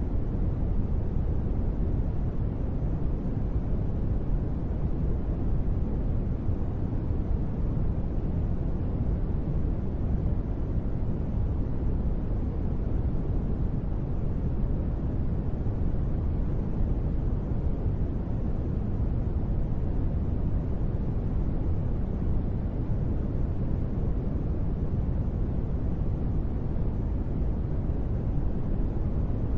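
Steady, deep rain-like noise, unchanging throughout, with its weight low like brown noise and no separate drops or other events standing out.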